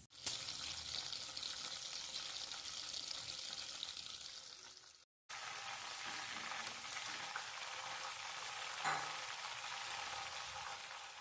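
Batter-coated chicken pieces deep-frying in hot oil in a steel kadai: a steady sizzle that drops out briefly about five seconds in, with a soft knock near the end.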